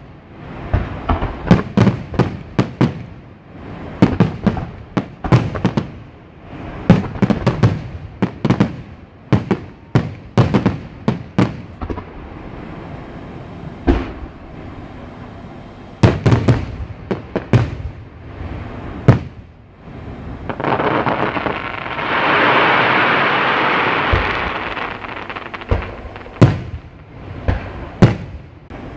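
Aerial fireworks shells bursting in quick volleys of sharp bangs, with short lulls between volleys. About two-thirds of the way through, a steady hiss swells and fades over a few seconds before a few last bangs.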